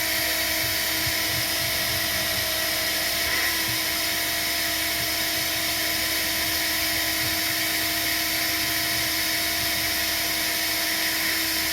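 Vacuum cleaner running steadily with a high motor whine over a rush of air, its pitch shifting slightly about three and a half seconds in as the suction load changes while it cleans debris from a diesel heater's air inlet.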